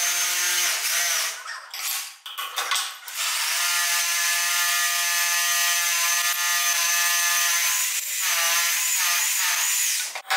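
Small handheld electric power tool running at speed with a high motor whine: a short burst at the start, then a steady run of several seconds whose pitch wavers near the end before it cuts off.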